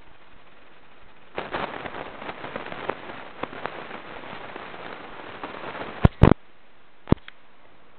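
Crackling, rustling handling noise from about a second and a half in, then sharp plastic clicks about six seconds in and once more a second later as Lego bricks are pressed together.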